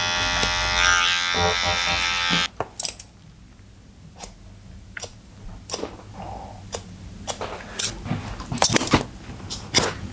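Cordless hair trimmer buzzing steadily against the neck hair, switched off about two and a half seconds in. Then a string of sharp scissor snips cutting wet hair, irregular, about one or two a second.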